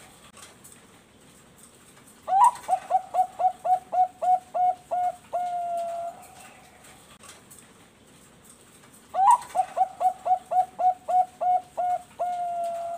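Bangkok perkutut (zebra dove) singing twice. Each song opens with a rising note, runs through about ten quick clipped coos, and ends on one long held coo, with a quiet pause between the two songs.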